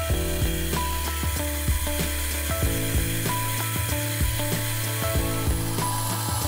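Milling machine running, a twist drill boring a cross hole in a small metal part, with a steady motor hum and many irregular mechanical clicks; the hum steps up in pitch about two and a half seconds in.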